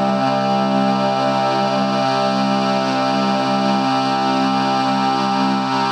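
Drone Lab analog drone synthesizer playing a sustained, many-toned drone, its lower tones pulsing slowly and evenly.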